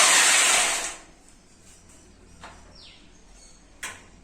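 Electric drill running steadily, then stopping about a second in. Afterwards a few faint falling chirps and a sharp click near the end.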